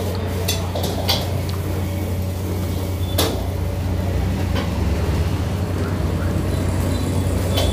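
Steady low hum with a few short, light clicks and taps scattered through it.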